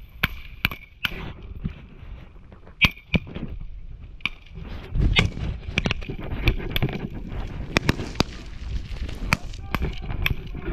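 Scattered rifle gunfire on a live-fire range: sharp, irregular cracks, sometimes several close together, with a low rumble building from about five seconds in.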